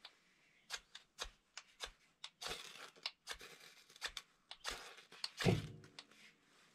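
Knife spine scraped repeatedly down a ferrocerium fire steel to throw sparks onto jute twine tinder: a rapid, irregular series of short, sharp scrapes, a few of them longer strokes.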